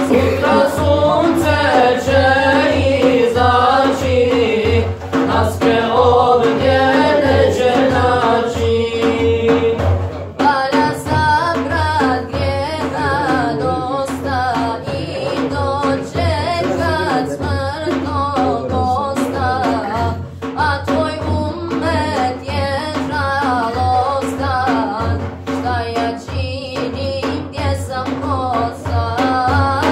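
Male voices singing an ilahija, a Bosnian Islamic devotional hymn, over a steady beat on a large frame drum (def). The singing breaks off briefly about ten seconds in, then goes on.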